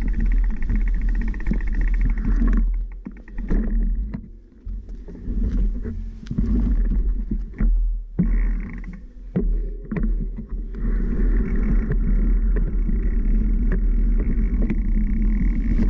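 Vehicle engine running steadily, easing off for several seconds in the middle, where irregular knocks and clunks can be heard, then picking up again.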